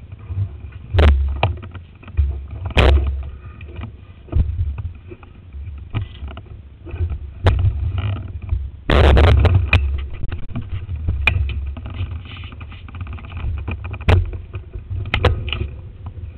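Handling noise from a bicycle-mounted action camera being moved along: a low rumble throughout, with irregular knocks and rattles about every second or two and a burst of them about nine seconds in.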